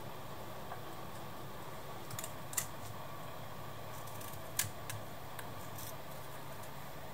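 Folding knife blade shaving wood off a pencil: a handful of short, sharp cuts, the loudest about two and a half and four and a half seconds in, over a steady low hum.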